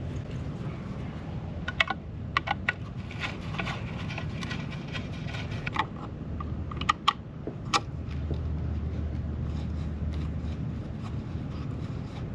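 Scattered small clicks and clinks of metal hardware and hand tools being handled, over a steady low hum, with a slightly louder low drone for a couple of seconds after the middle.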